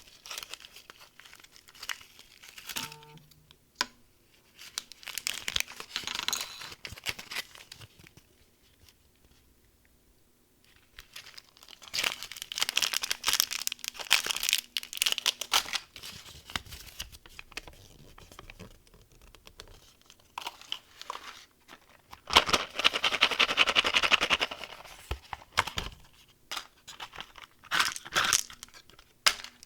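Candy wrappers and packaging crinkling and being torn open in irregular bursts, with a near-quiet pause about ten seconds in. The longest, densest tearing comes about two-thirds of the way through.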